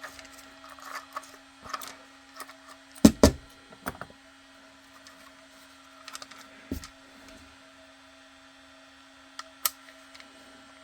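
Scattered light clicks and taps of small hardware and tools being handled on a workbench, with two louder knocks about three seconds in and another near seven seconds, over a steady low hum.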